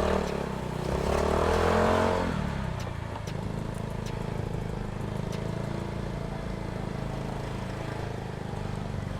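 Yamaha Mio Soulty scooter engine running through an aftermarket ORBR pipe while riding. The revs rise about a second in and fall back, then it holds a steady note.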